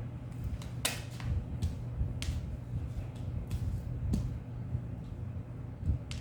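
A few scattered short clicks or taps over a steady low hum.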